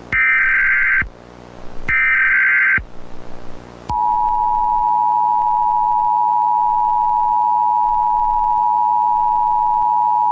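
Emergency Alert System signal: the last two of three SAME header data bursts, each just under a second with a short gap between, then from about four seconds in the steady two-tone attention signal.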